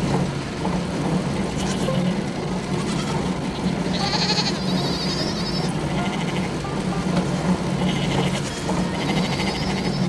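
Sheep bleating over the steady hum of factory machinery and a running conveyor.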